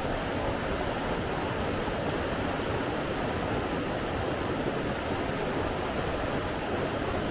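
Flowing water rushing in an even, unbroken wash with no changes in level.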